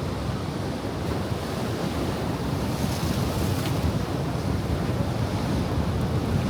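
Ocean surf breaking and washing in, with wind rumbling on the microphone. A brighter hiss of a wave swells about three seconds in.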